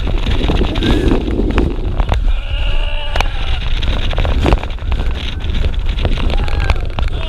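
A roller coaster train running at speed: wind buffeting the microphone in a heavy rumble, with the train knocking and rattling on the steel track. Riders give short yells and screams, a few seconds in and again near the end.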